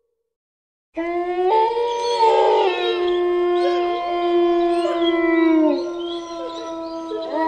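A chorus of wolves howling: several long howls at different pitches overlap, some held steady while others slide down or rise. It starts abruptly out of silence about a second in.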